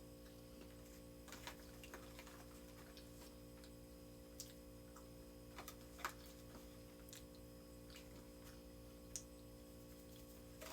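Near silence: room tone with a steady low electrical hum and a few faint, scattered clicks.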